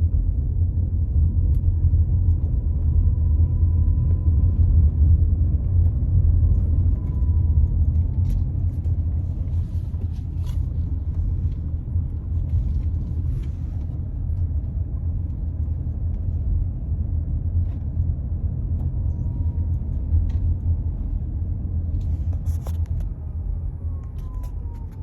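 Cabin noise of a 2020 Toyota RAV4 Hybrid Limited on the move: a steady low road rumble, with scattered faint clicks and rattles of the kind the owner traces to the B-pillar. A faint whine glides down a couple of times.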